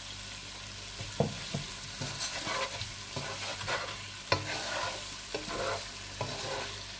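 Chicken and onions sizzling as they fry in a pot, with a spoon stirring and scraping the pot and knocking against it a few times, most sharply about a second in and again past the middle.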